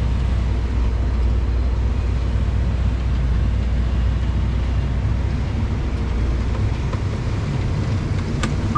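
Tractor engine running steadily under load, a low drone heard from inside the cab.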